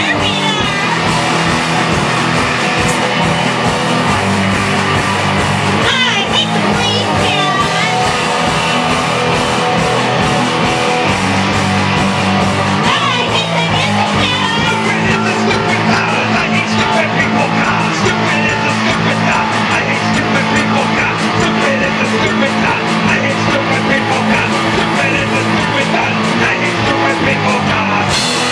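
A punk rock band playing live: electric guitars and drums over a steady beat, with vocals coming in at a few points.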